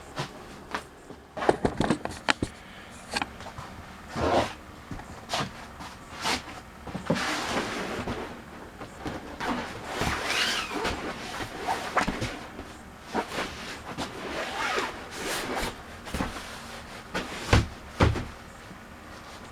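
Bedding being handled and laid out: stretches of nylon-like rustling with scattered knocks and clunks, two of the loudest about a second apart near the end.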